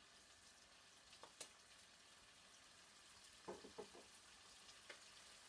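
Faint, steady sizzle of diced chicken breast frying in oil in a pan, with a few light clicks.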